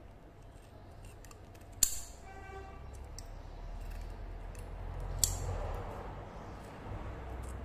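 Kitchen shears snipping through the fins and head of a small red mullet, with small clicks throughout. Two sharp metal clicks stand out, about two seconds in and about five seconds in; the first leaves a brief metallic ring.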